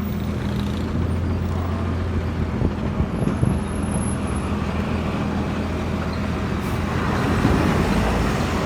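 Car engine and road noise while driving: a steady low engine hum with tyre and wind noise, growing a little louder about seven seconds in.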